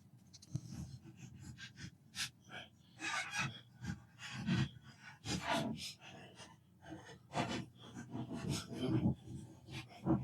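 Irregular rubbing and wiping strokes on PlayStation 4 plastic casing parts and buttons being scrubbed clean, with some handling noise.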